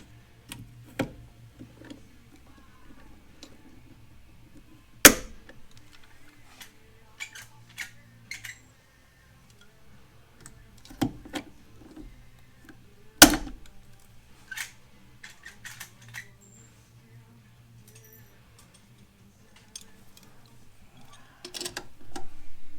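Pop rivet gun setting rivets in an aluminum panel: a run of small clicks from the gun's strokes, with two sharp snaps about eight seconds apart as rivet mandrels break off.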